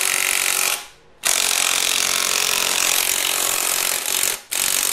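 Pneumatic impact wrench hammering on a crankshaft pulley bolt to loosen it, in trigger pulls: one stops about a second in, a long pull of about three seconds follows, and another starts near the end.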